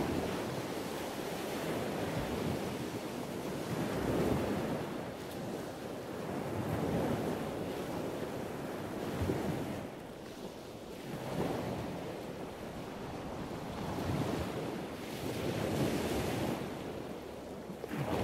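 Rough sea, with waves washing and breaking in surges that swell and fade every two to three seconds, and wind rumbling on the microphone.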